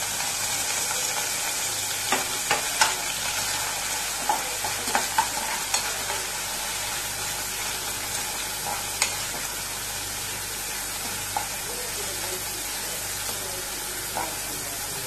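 Chopped red onion sizzling in ghee and oil in a nonstick pan, being sautéed until it softens. A spatula stirs it and knocks and scrapes against the pan: a cluster of clicks a couple of seconds in, then a few single ones later.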